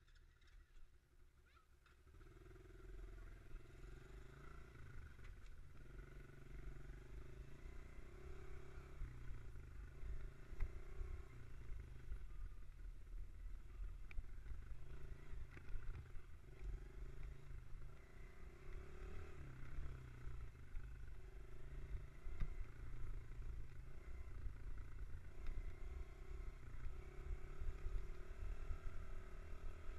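Mini dirt bike's small single-cylinder engine running under way, heard from a helmet-mounted camera. It picks up about two seconds in, then its pitch rises and falls every few seconds as the throttle opens and closes, over a constant low rumble.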